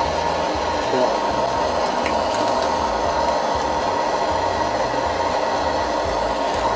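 Handheld gas blowtorch burning with a steady hiss, its flame played into a small stainless steel saucepan.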